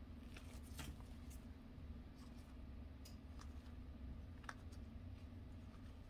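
Faint ticks and slides of glossy trading cards being flipped one at a time through a gloved hand, a few irregular light clicks over a low steady hum.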